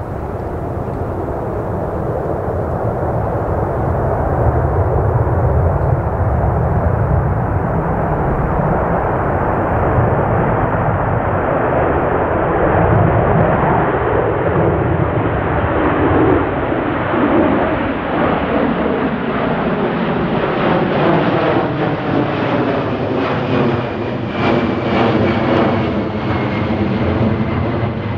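Jet airliner passing close by, its engine noise building and growing brighter, then holding loud, with a faint high whine sliding slowly down near the end.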